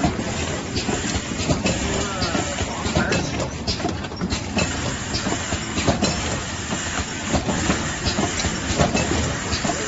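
Automatic glove-box packing machine running: a steady mechanical clatter with frequent, irregular clicks and knocks as cardboard boxes are carried along its belts and conveyors.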